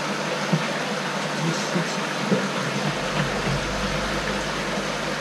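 Steady background machine noise from equipment running in the room, with a few light knocks of a plastic bottle and cap being handled while water is poured into a small test vial.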